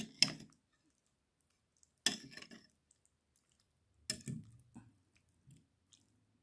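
Metal spoon and fork clinking and scraping against a ceramic bowl in short bursts: one at the start, one about two seconds in and one about four seconds in.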